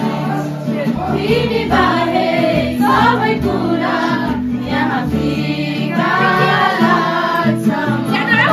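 A group of people singing a song together, accompanied by an acoustic guitar.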